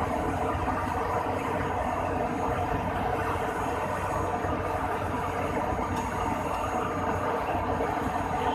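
Steady running noise of an Airbus A300-600 being run for an operational check: an even machinery drone and rush that holds the same level throughout, with faint steady tones in it.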